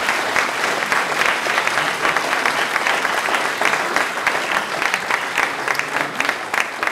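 Audience applauding: many people clapping hands at once, steady and sustained.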